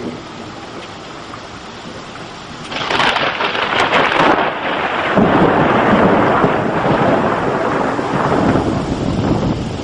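Thunder: about three seconds in, a sudden sharp crackling clap breaks out over a steady hiss, then settles into a loud rolling rumble that carries on.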